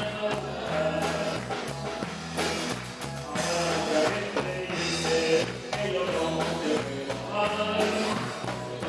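Live Spanish-language Catholic praise song: a group singing over a band, with a bass line stepping between notes and a steady beat.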